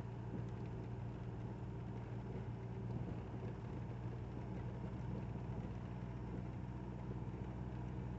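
Motorhome engine running at steady cruising speed, heard from inside the cab: an even low drone with road noise.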